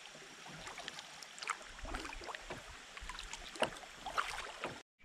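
Kayak paddle strokes in calm creek water: irregular small splashes and drips as the blade dips and lifts, over a light trickle of water. The sound cuts off suddenly just before the end.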